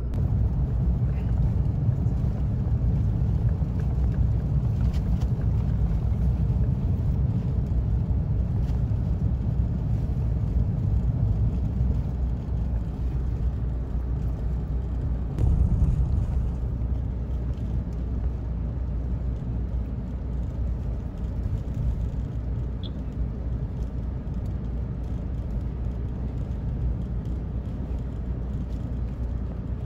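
Car interior road and engine noise while driving: a steady low rumble heard from inside the cabin, with a brief louder rush a little past halfway through.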